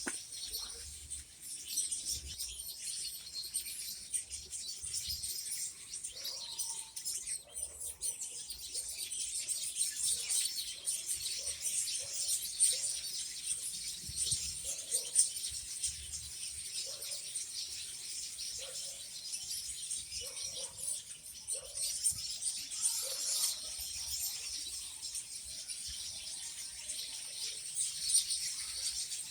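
Small songbirds chirping, many calls overlapping into a continuous high twittering.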